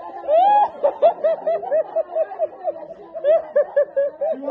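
A person laughing: a long run of short, quickly repeated high-pitched "ha" sounds, several a second, with a rising whoop near the start.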